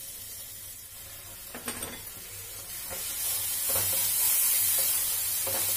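Spice masala sizzling in a non-stick frying pan as fresh cream is stirred into it with a wooden spatula; the sizzle grows louder about three seconds in, with a few scrapes of the spatula against the pan.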